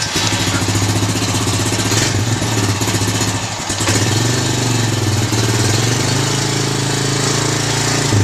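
Honda Rancher 350's single-cylinder four-stroke engine running steadily on choke just after starting, its speed shifting slightly about four seconds in. The freshly rebuilt carburetor is feeding fuel again after its stuck-closed needle kept the engine from starting.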